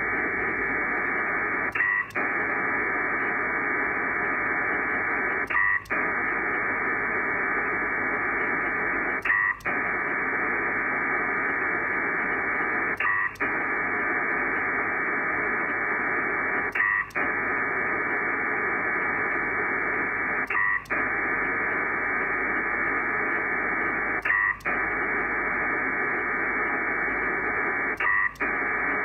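Pactor data signal from an SCS P4 Dragon modem transmitted through an ICOM IC-7300: a steady hissing band of data tones, broken by a short gap about every 3.7 seconds, eight times. The gaps are the ARQ turnarounds where the transmitting station pauses to receive the remote station's acknowledgement during a long data transfer.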